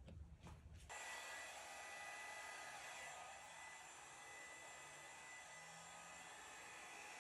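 Hair dryer blowing air over wet acrylic pour paint to push it across the canvas: a steady hiss with a thin whine, starting suddenly about a second in.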